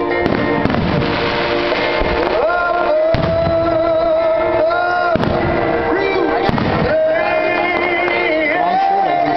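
Music with a sung melody plays throughout, with several fireworks shells bursting under it as dull thumps and cracks.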